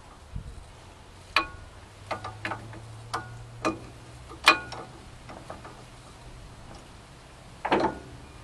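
Sharp metallic clinks and taps, several scattered through the first five seconds with the loudest about four and a half seconds in, then a short rattle near the end, as brake pads and caliper parts are handled and fitted against a brake rotor.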